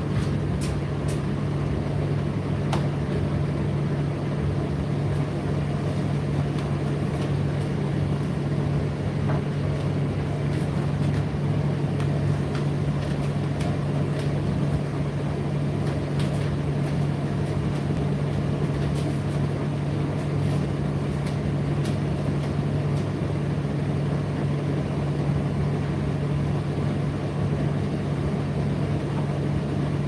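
Indesit IDC8T3 8 kg condenser tumble dryer running: a steady low motor and fan hum over the drum's rumble, with faint scattered clicks.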